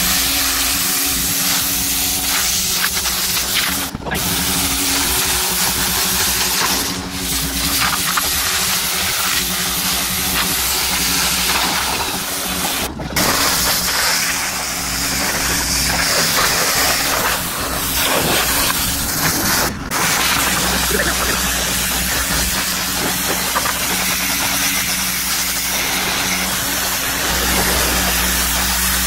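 Pressure washer spraying water onto a pickup truck's steel body panels: a steady hiss of spray over the even hum of the washer's motor, with a few very brief dropouts.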